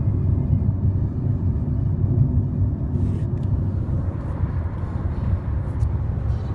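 Steady low rumble of a car's engine and road noise heard inside the cabin while driving. A few brief rustles and clicks come about three seconds in and again near the end, as the phone is moved around.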